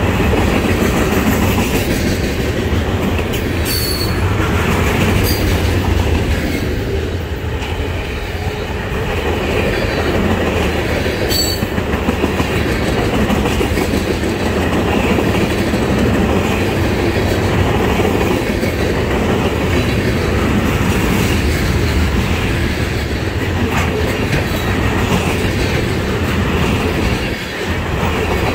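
Freight cars of a trash train rolling past on steel wheels: a steady heavy rumble with the clatter of wheels over the rail joints. A few brief high squeaks come about four, five and eleven seconds in.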